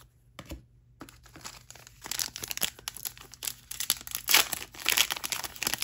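A trading-card pack's wrapper being crinkled and torn open by hand: an irregular crackling that starts about a second in and grows louder.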